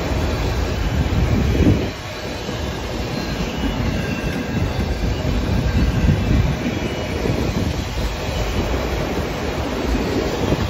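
Enclosed auto rack freight cars rolling past close by: a steady rumble and clatter of steel wheels on the rails, with a faint high wheel squeal.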